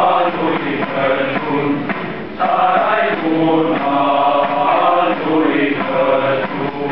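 Male choir singing a Romanian colindă (Christmas carol) in long held phrases, with a short breath break about two and a half seconds in.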